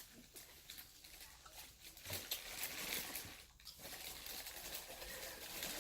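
Faint soft crackling and scattered clicks from seafood being eaten and handled, a little louder about two seconds in.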